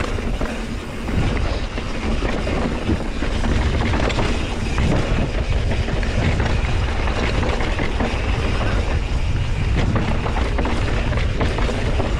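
Mountain bike riding down a dirt trail: a steady rush of tyres and wind on the microphone, with the bike rattling and knocking over bumps throughout.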